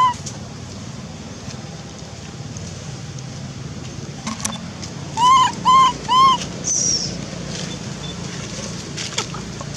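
Baby macaque calling three times in quick succession with short rising-and-falling coos about half a second apart, followed by a brief high falling chirp.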